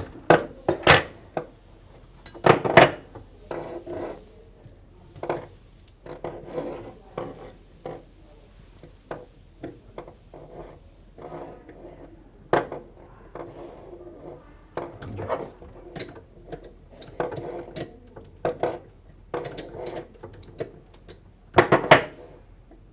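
Wrench and metal plumbing fittings clinking and clanking irregularly while connections are unthreaded to disconnect a faucet valve block from its supply lines.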